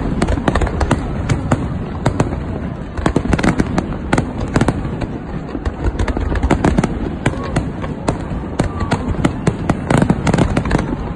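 Fireworks display: a dense, continuous barrage of shell bursts, many sharp bangs in quick succession over a steady low rumble, thickening into heavier clusters twice.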